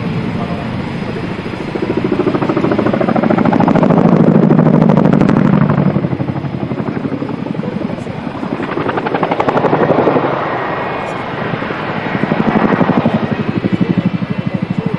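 CH-47F Chinook tandem-rotor helicopter flying low and close, its rotor blades beating in a rapid, steady chop. The sound swells louder and eases off several times.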